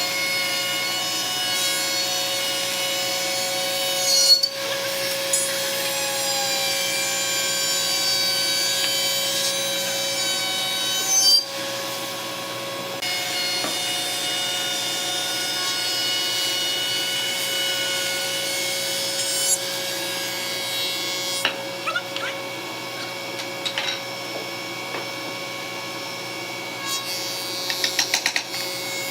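A power tool running steadily while working wood, with a few sharp louder moments and a short run of clicks near the end.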